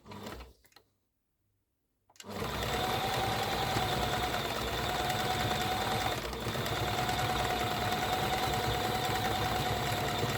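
Toyota domestic sewing machine running steadily, stitching through rucksack strap fabric. It stops for about a second and a half near the start, then runs on without a break, with a brief slowdown about six seconds in.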